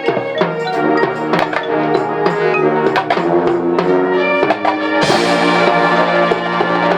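Marching band playing: brass sustaining chords over drums and percussion, with a cymbal crash about five seconds in that lingers as a bright shimmer.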